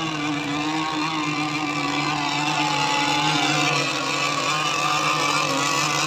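Engine of a radio-controlled racing powerboat running at speed across the water: a steady buzzing note whose pitch dips a little near the middle.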